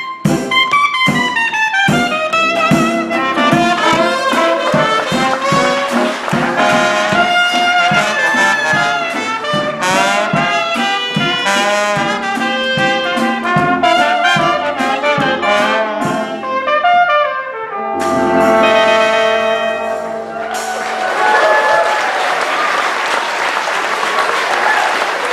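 Traditional New Orleans jazz band of clarinet, trumpet, trombone and sousaphone over a steady rhythm section, playing the last bars of a tune and ending on a long held chord. Applause takes over about twenty seconds in.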